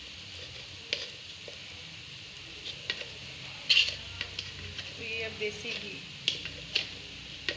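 Missi roti frying in desi ghee on a tawa: a steady sizzle with a few sharp pops or clicks, the loudest about four seconds in.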